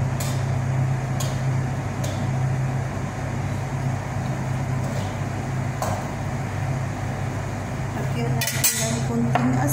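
A metal spoon clinking and scraping against a cooking pan as vegetables are stirred, with a few separate knocks and a louder clatter near the end, over a steady low hum.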